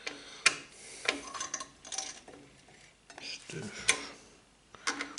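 Metal parts of a CPU cooler mount clicking and scraping as they are worked and tightened by hand, going in stiffly. Several sharp clicks come at irregular intervals, with rubbing between them.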